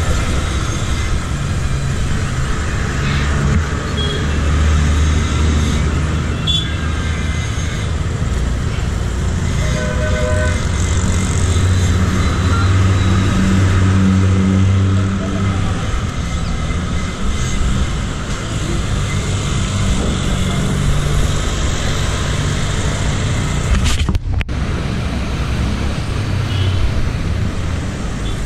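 City road traffic heard from a bicycle: engines of passing vehicles rumbling, with a short horn toot about ten seconds in.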